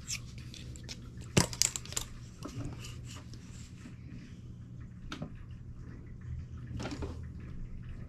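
Light handling noise from thick plastic sheets being lined up at a sewing machine: a few scattered clicks and rustles over a low steady hum, with one sharper click about a second and a half in.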